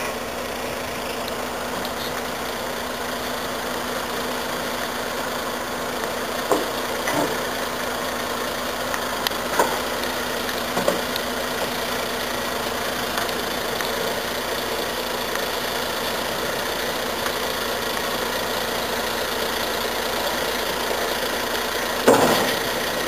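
Military truck's diesel engine running steadily at low revs as the truck creeps along the railway flat wagons. A few short sharp knocks come through in the middle, and a louder thump near the end.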